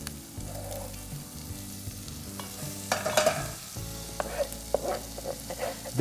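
Finely chopped onion sizzling in rendered bacon fat in a frying pan as it is stirred, with a few brief knocks and a louder scrape of the utensil about halfway through.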